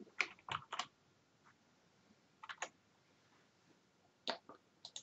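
Faint computer keyboard keystrokes, a few sharp clicks in small groups with pauses between.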